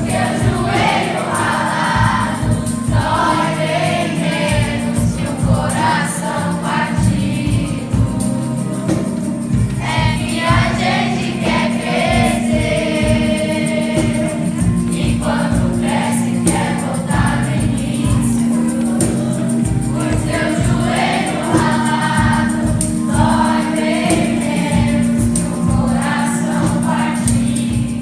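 A choir singing with instrumental accompaniment and a steady beat.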